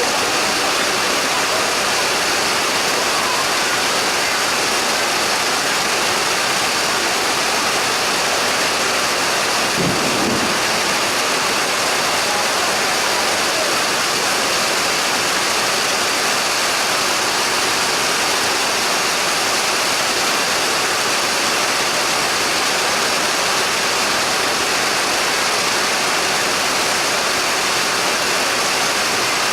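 Heavy rain pouring down in a steady, dense hiss, with a brief low thump about ten seconds in.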